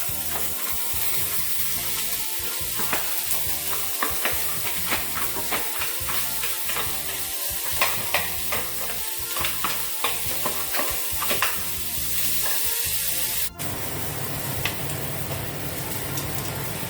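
Chopped onion, carrot and celery sizzling in olive oil in a pan while being stirred, with frequent light clicks and scrapes of the utensil against the pan. The sound breaks off for an instant about two-thirds of the way through and resumes as a steadier sizzle.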